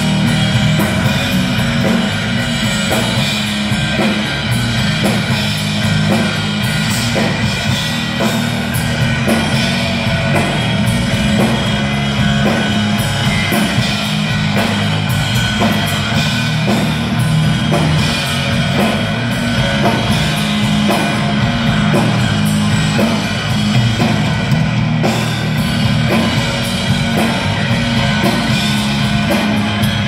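Rock band playing through an outdoor stage PA during a soundcheck: a drum kit keeping a steady beat under guitar and bass.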